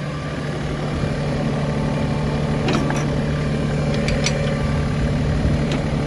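Kioti CS2520 compact tractor's diesel engine running steadily at a constant speed, with a few light clicks about halfway through.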